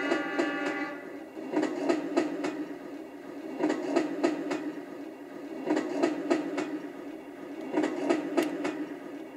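Recorded train sound from a Magicteam white noise machine, played through its small speaker: a steady rumble with groups of clickety-clack from rail wheels passing over track joints, about every two seconds.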